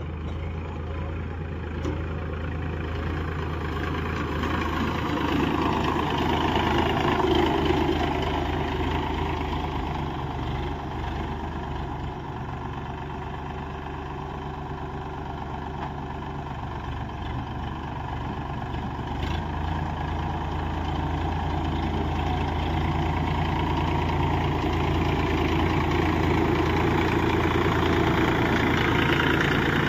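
Sonalika DI 740 tractor's three-cylinder diesel engine running steadily while pulling a seed drill. It grows louder about a quarter of the way in, eases off, then builds again near the end as the tractor comes close.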